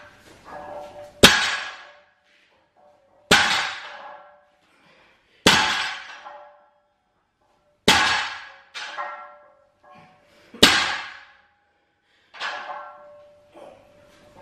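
A 205-lb barbell loaded with iron plates touches down on a rubber gym floor at each deadlift rep, giving five sharp clanks a couple of seconds apart with lighter knocks between them. The plates ring briefly after each touchdown.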